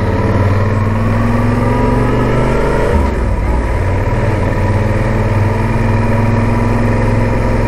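Motorcycle engine heard from the rider's seat, pulling at low road speed: its pitch rises for about three seconds, drops sharply at a gear change, then runs on steadily.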